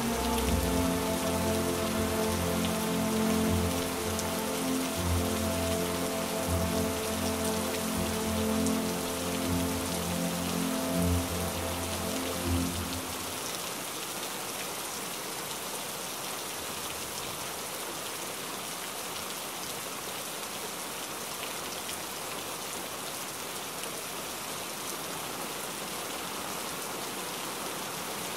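Steady heavy rain, with soft background music of sustained low notes that stops about halfway through, leaving only the rain.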